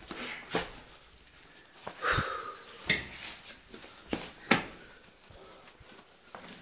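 Knocks, scrapes and fumbling on a hand-held phone as people clamber through a cramped cave, with breathing and sniffing between the knocks. The sharpest knocks come about three seconds in and about four and a half seconds in.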